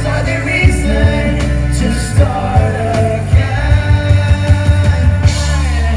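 A band plays live acoustic pop-rock, with strummed acoustic guitars, a bass guitar and a small drum kit keeping a steady beat under a sung vocal.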